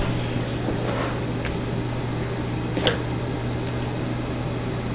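Large cardboard box being handled and stood on end on a table, with a short knock about three seconds in and a few lighter scuffs, over a steady low hum.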